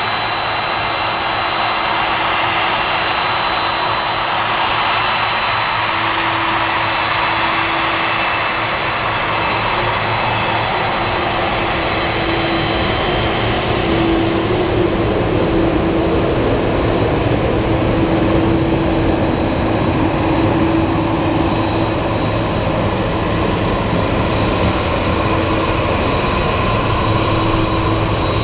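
Boeing 767-300 freighter's twin jet engines running steadily as it taxis. A high whine fades over the first few seconds, and a lower hum grows as the aircraft turns and rolls past side-on.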